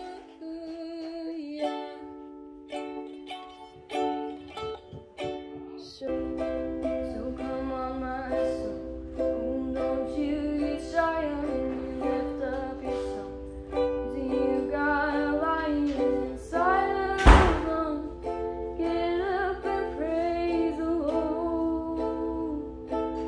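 Ukulele chords played for a worship song, with voices singing over them from about six seconds in. A single sharp knock, the loudest sound, comes about seventeen seconds in.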